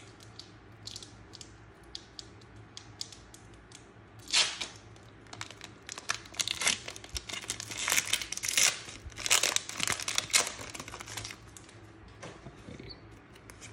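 Foil Pokémon booster pack wrapper being handled and torn open by hand, crinkling and tearing. It starts with a few scattered crackles, then comes a dense run of rips and rustles, loudest from about six to eleven seconds in, before it quiets as the cards come out.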